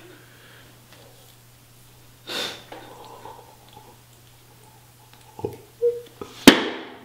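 A man breathing and sniffing loudly at a can of Spam held to his face, with a single sharp click near the end.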